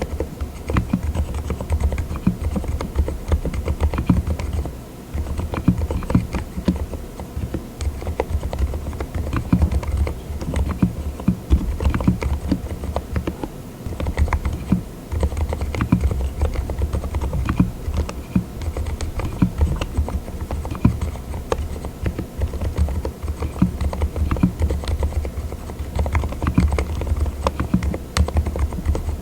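Continuous typing on a mechanical keyboard fitted with Cotton Candy silent linear switches (36 gf): a dense run of damped keystrokes, with brief pauses about five and fourteen seconds in.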